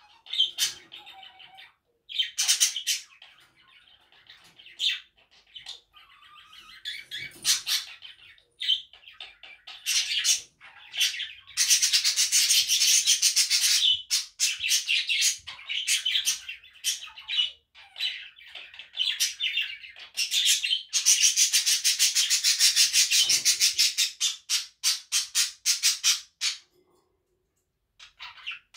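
Male budgerigar chattering and warbling in fast, scratchy runs, broken into short bursts, with two long unbroken stretches of warble and a brief pause near the end.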